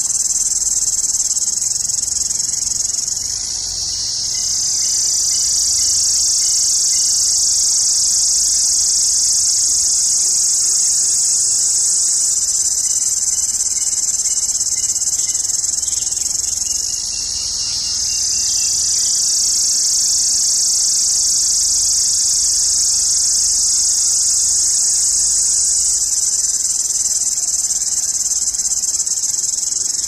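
A cicada shrilling loudly: a continuous high, piercing buzz that briefly sags and swells back twice, a few seconds in and just past halfway.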